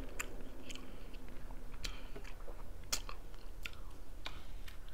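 Close-up eating sounds of a person chewing sushi and poke bowl, with irregular sharp mouth clicks about twice a second.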